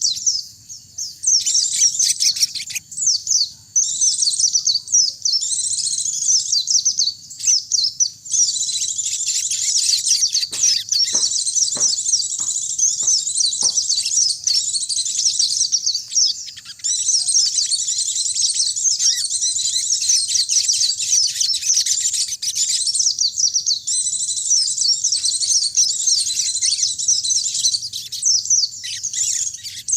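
White-eyes (pleci) singing a fast, high-pitched twittering song that runs on almost without a break, with a few short pauses. About ten seconds in, a series of about six short, lower notes comes roughly two a second.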